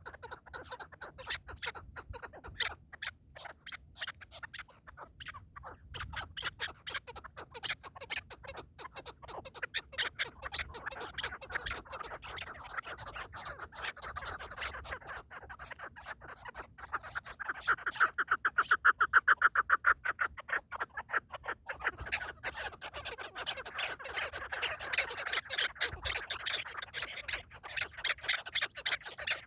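Partridges calling: a rapid, rhythmic cackling chatter of many short notes that swells to its loudest about two-thirds of the way through.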